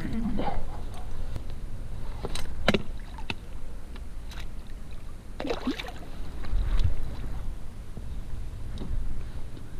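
Water splashing and sloshing as a landing net holding a freshly caught trout is lifted out of the water, with scattered knocks from handling the net and a low wind rumble on the microphone.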